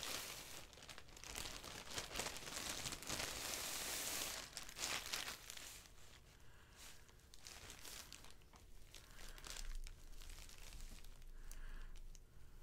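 Thin clear plastic bag crinkling and rustling as white packing stuffing is pulled out of it by hand. It is busiest for about the first half, then fades to occasional soft rustles.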